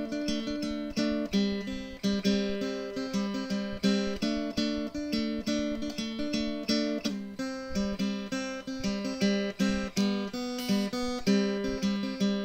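Background music: an acoustic guitar playing chords in a steady rhythm.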